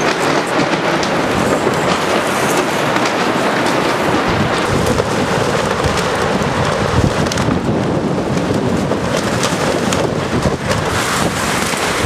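Strong gusty wind buffeting the microphone in a steady, loud rush, with frequent short crackles and rattles through it.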